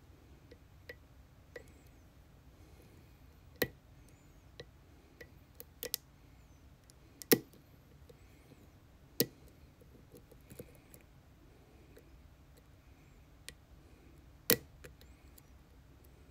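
Small metal clicks and taps of a hook pick and tension wrench working inside a lock cylinder, irregularly spaced, with four sharper, louder clicks among them.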